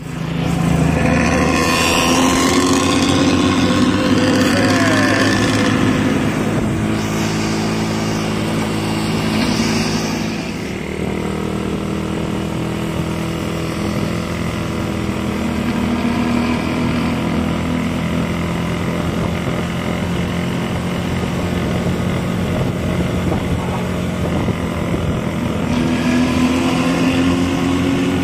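Intercity bus engine running hard through its 'ngorok' exhaust, a deep snoring growl, loud and steady with shifts in pitch as the engine note changes.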